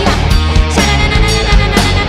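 Loud rock music with a steady beat, guitar-driven.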